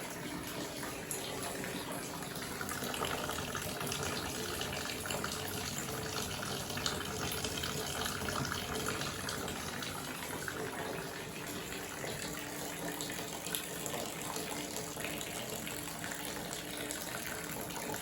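A steady stream of water pouring from a siphon pipe out of a hanging 5-litre bottle into a big bowl, splashing continuously.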